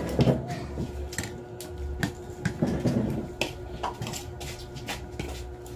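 Scattered clinks and taps of spoons and hands against plates and bowls during a meal, over a steady low hum.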